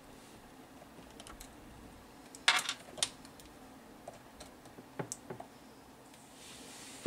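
Scattered plastic and metal clicks and rattles as an oscilloscope probe is handled and clipped onto a test point. The loudest clatter comes about two and a half seconds in, with a few lighter clicks after it.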